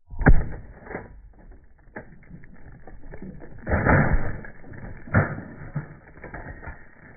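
A 7.62x39 AK-pattern rifle fires a single shot with its muzzle encased in a concrete cylinder, a sharp, very loud crack about a third of a second in. Scattered thumps and clatter follow as the rifle and pieces of concrete are thrown off the bench and land.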